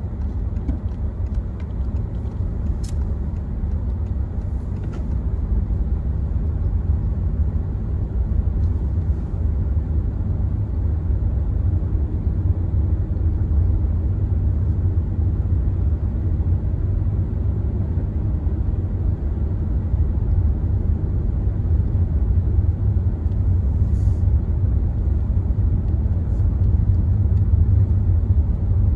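Car driving on snow-covered roads, heard from inside the cabin: a steady low rumble of tyres and engine that grows slightly louder toward the end.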